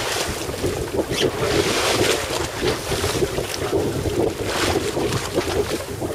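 Wind buffeting the microphone on a boat at sea, with rough, gusty noise from the wind and water washing on choppy waves.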